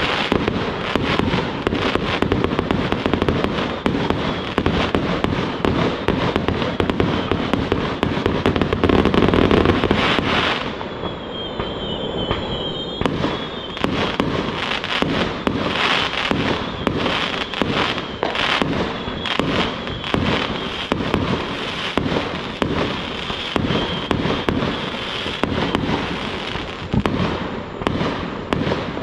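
Aerial fireworks going off in a dense, continuous barrage of bangs and crackling bursts, with a wavering high whistle about eleven seconds in.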